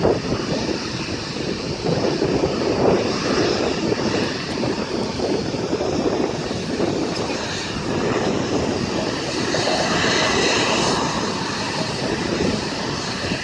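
Bombardier CRJ regional jet's twin rear-mounted turbofan engines running at taxi power as it rolls slowly past: a steady rushing hum with a high whine that grows a little stronger about ten seconds in.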